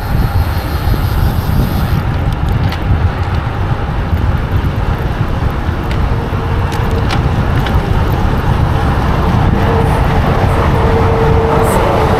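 Heavy wind buffeting on an action camera's microphone from riding a road bike at speed, with road traffic running underneath and a steady hum that grows louder in the second half.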